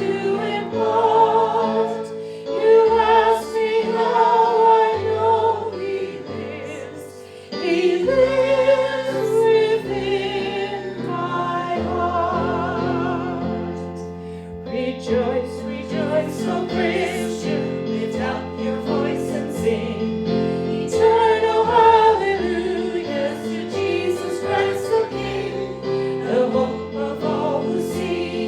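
Hymn music with voices singing with vibrato over an accompaniment, dipping briefly about seven seconds in.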